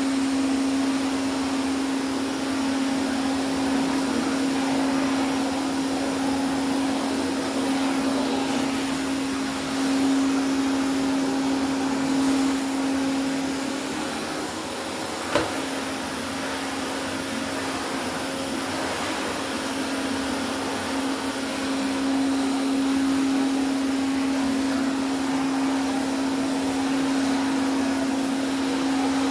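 Hoover Constellation canister vacuum cleaner running steadily on its old filter: a constant motor hum over a rush of air. There is one sharp knock about fifteen seconds in.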